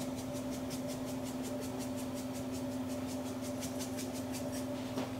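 Salt shaker shaken over tater tots on a wire tray, a quick regular series of faint ticks, about four shakes a second, that dies away near the end. A steady low appliance hum runs underneath.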